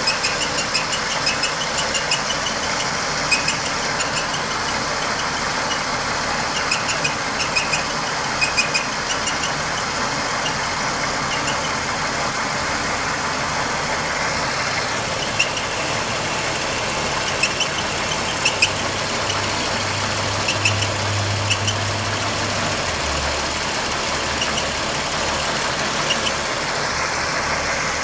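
Ford Taurus engine running, with short irregular ticks over a steady noise, the strange engine sound the owner is recording. A low hum comes in about two-thirds of the way through and drops lower a few seconds later.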